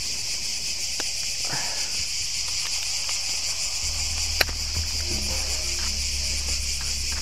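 Cicadas in a steady high-pitched chorus. There is a single sharp click about four and a half seconds in, and low background music notes come in at about the same point.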